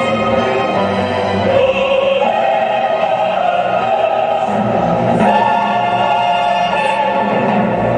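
Choral music: voices holding long chords that shift to new ones a few times.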